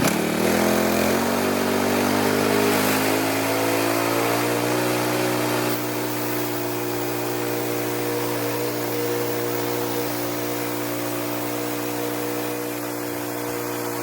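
Portable band sawmill's engine revving up, its pitch rising over the first four seconds, then running steady at speed.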